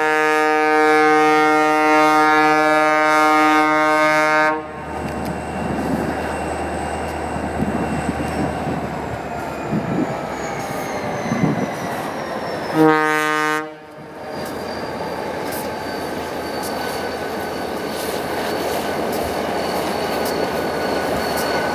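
Diesel locomotive horn on a snow plow train: a long blast that cuts off about four and a half seconds in, and a short blast about thirteen seconds in. Between and after the blasts the train is running, with a rumble and a thin high squeal slowly falling in pitch.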